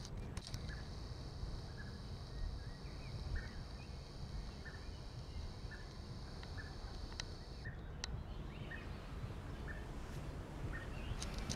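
A small bird chirping short, repeated notes every half second to a second, over a steady high-pitched hiss that cuts off sharply about two-thirds of the way through and a low rumble, with a few sharp clicks.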